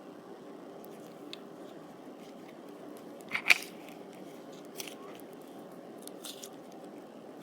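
Slime being handled: scattered small crackles and squishes, with one loud crackling pop about three and a half seconds in, over a steady low background hiss.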